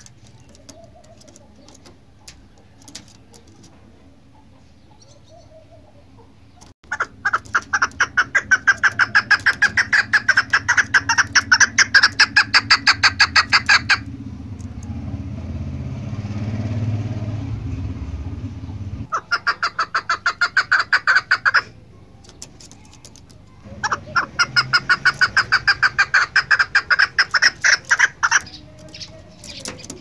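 Chukar partridge calling in three bouts of fast, evenly repeated short notes, several a second, the first and longest starting about seven seconds in. A low rumble fills the gap after the first bout.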